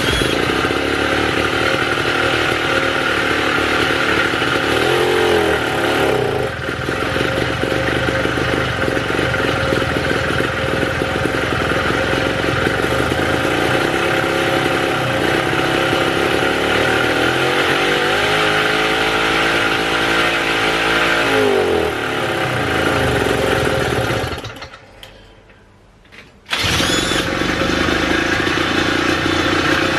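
50cc Puch Maxi moped engine, a single-cylinder two-stroke, running on the motorized scooter, its revs rising and falling several times. Near the end it goes quiet for about two seconds, then comes back abruptly.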